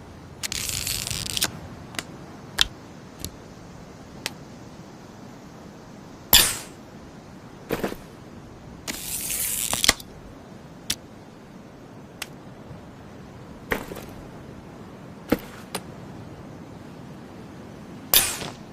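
Tactical crossbow sound effects: a string of sharp mechanical clicks, two hissing rasps about a second long, and two loud sharp snaps, the loudest about six seconds in and another near the end.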